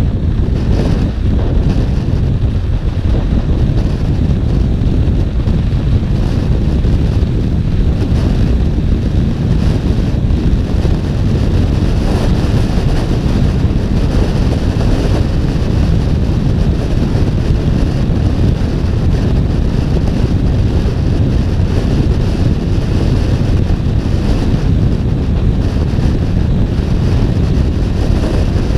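Wind buffeting the microphone of a camera on a KTM 1290 Super Duke R at riding speed, steady and heavy in the lows, with the bike's V-twin engine running underneath.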